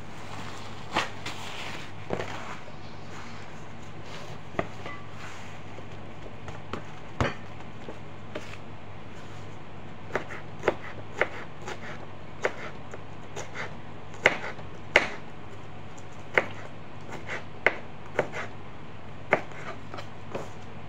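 Chef's knife slicing a bell pepper into strips on a hard cutting board: irregular sharp knocks of the blade hitting the board, a few at first and more often in the second half. A steady low hum runs underneath.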